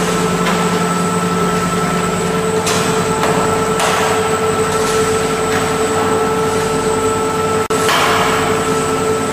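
Steady dairy-plant machinery running, a continuous hum with several steady whine tones, with a rushing noise that swells and fades a few times and one very brief dropout near the end.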